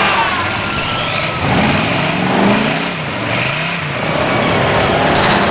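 Mud truck engine revving up and down about three times in quick succession. A high whine rises and falls along with the revs.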